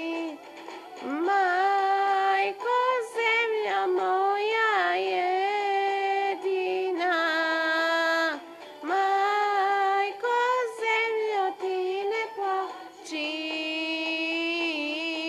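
Female voices singing a slow Balkan song in long held notes with quick ornamental turns, over a recorded track playing from a laptop. The singing breaks off briefly about eight seconds in.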